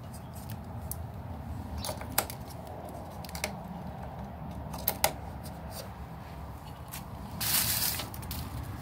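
Handling noise from a battery charger's spring clamp and leads being worked onto a lawn mower battery terminal, with a few sharp clicks about two and five seconds in and a short rustle near the end.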